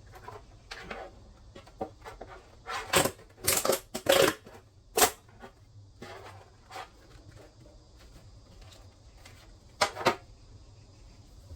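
Irregular knocks and clatters of objects being handled, bunched together about three to five seconds in with one more near the end, over a faint steady hum.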